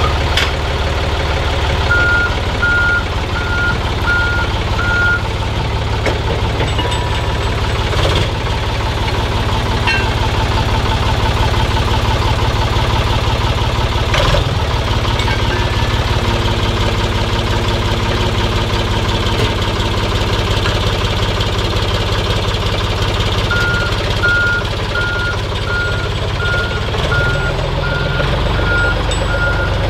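A heavy forklift's engine running steadily while its reversing alarm beeps in an even series, about one and a half beeps a second, a couple of seconds in and again over the last six seconds. Single metal clanks sound about eight and fourteen seconds in as steel railcar wheelsets are handled.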